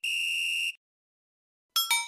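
Comic buzzer sound effect: one steady, flat buzz lasting under a second, then silence, then two quick bright metallic dings that ring out near the end.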